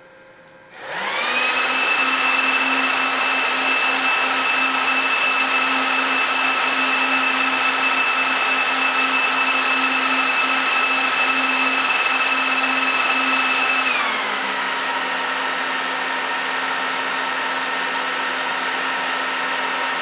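Tyan Transport GT24 1U server's small high-speed cooling fans spinning up as the server is switched on, rising within a second to a loud, steady whine of several tones over rushing air. About fourteen seconds in, the fans slow to a lower pitch and a little less loud, then run steady.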